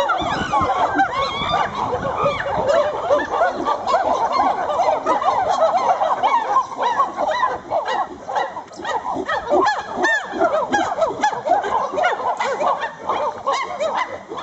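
A group of chimpanzees calling together, many short overlapping hoots rising and falling in pitch in a continuous chorus.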